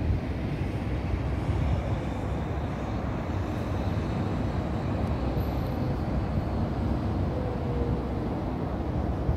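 Steady low rumble of distant city ambience, traffic and wind, with no distinct events.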